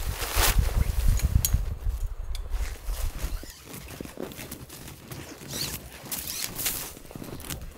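Heavy canvas hot tent being taken down and folded, its fabric rustling with a low rumble, louder for about the first three seconds. After that come quieter, scattered rustles and crunches of camp gear being packed in the snow.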